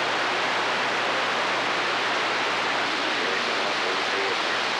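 Steady hiss of static from a Galaxy radio's receiver, the channel open with no one clearly transmitting.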